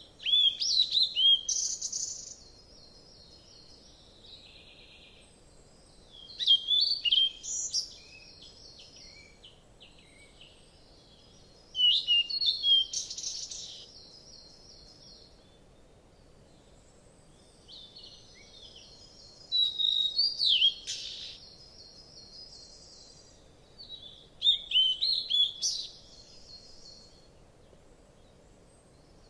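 A songbird singing in five separate bursts, one every five to seven seconds. Each burst is a quick run of high, swooping notes followed by a rapid trill.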